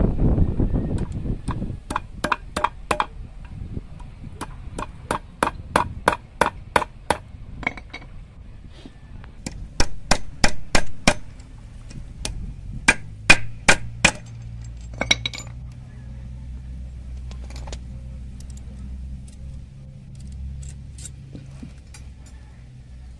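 A claw hammer tapping a small metal piece held against a wooden board: several runs of sharp, metallic taps, about three a second, that die away about 14 seconds in.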